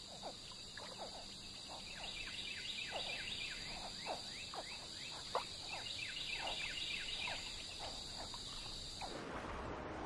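Wetland night chorus: a steady high-pitched insect trill with many short calls falling in pitch from frogs over it. About nine seconds in the chorus cuts off and a different, noisier background takes over.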